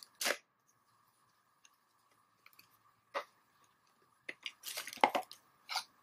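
A small cardboard product box and its paper insert being handled and opened: a few short rustles, then a longer cluster of them about four to five seconds in.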